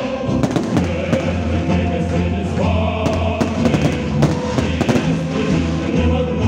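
Choral music playing loudly, with the sharp bangs and crackles of aerial fireworks shells bursting many times over it.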